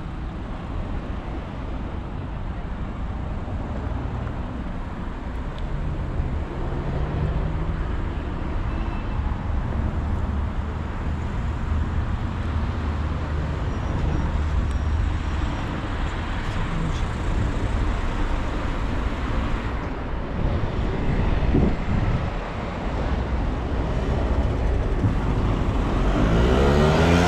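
Road traffic: car engines and tyres passing with a steady low rumble that grows louder, and a vehicle passing close near the end.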